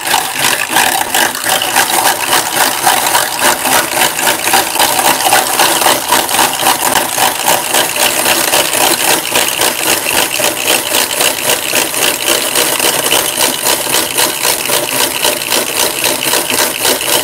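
Hand-cranked rotary egg beater beating eggs: a steady, rapid gear rattle and whir of the beaters in the bowl, pulsing evenly with each turn of the crank.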